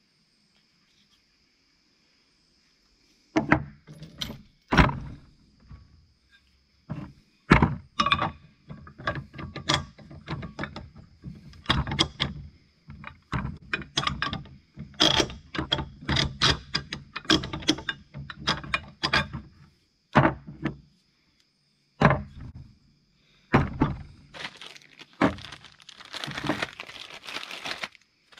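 Metal parts of a Wilton 675 bench vise knocking and clinking as it is taken apart by hand, starting about three seconds in as a long run of irregular sharp knocks. A plastic bag rustles over the last few seconds.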